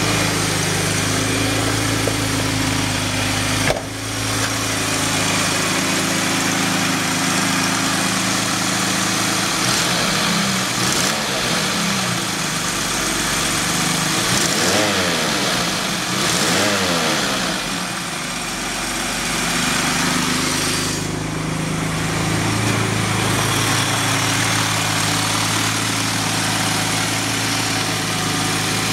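A 1990 Jaguar XJS's fuel-injected 5.3-litre V12 idling steadily at about 900 rpm, very smooth after a fresh tune-up with new plugs, wires and cap. A single knock sounds about four seconds in.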